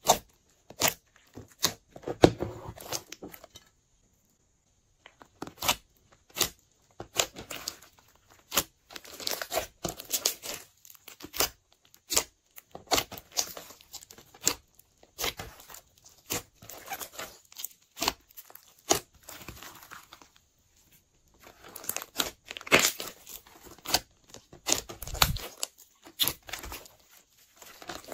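Hands squeezing, folding and poking a large mass of glossy pink slime, giving sticky crackles and clicks in quick irregular clusters, pausing briefly twice.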